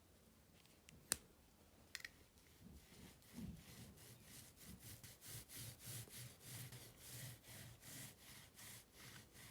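Faint rubbing or brushing strokes repeated about three times a second, after two sharp clicks.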